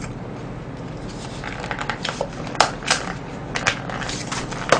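Thin plastic lid being peeled and pried off a disposable soup cup: crinkling with scattered clicks and snaps, starting about a second and a half in.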